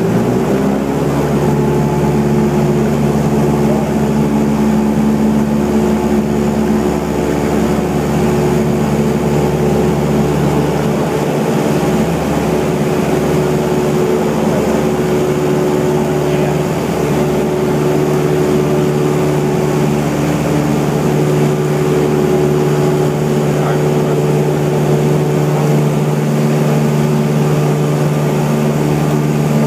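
Piston engine and propeller of a light single-engine high-wing airplane, heard from inside the cabin, rising in pitch to full power about a second in and then running steadily at takeoff power through the takeoff roll and climb-out.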